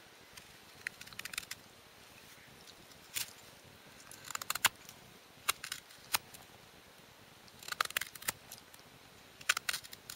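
A straight knife slicing small chips downward off the sides of a spruce spoon blank: crisp cuts and snaps of the wood coming away, in short irregular clusters.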